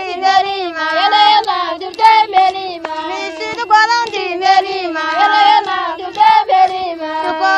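A high singing voice sings a melody in short bending phrases over a steady held low note, with a few short sharp ticks: a Toubou song.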